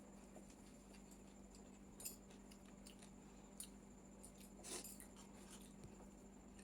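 Near silence with faint eating sounds from someone eating chow mein with a spoon: a few soft clicks and mouth noises, the clearest about three quarters of the way through, over a steady low hum.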